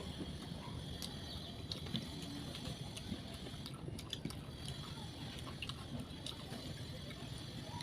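Eating sounds: wet chewing and squishing of rice and curry, with scattered small clicks and smacks.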